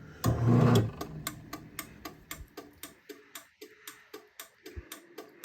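Craftsman chain-drive garage door opener clicking rapidly and evenly, about four clicks a second, as its light relay flashes the opener light: the warning that the safety sensors are blocked or out of alignment. A brief loud hum comes in the first second.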